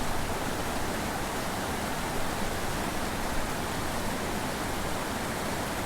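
Small mountain creek rushing over and between boulders: a steady, even water noise.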